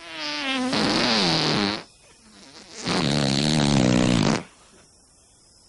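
Two long fart noises with a wavering pitch, the second starting about a second after the first ends, given to a gorilla breaking wind.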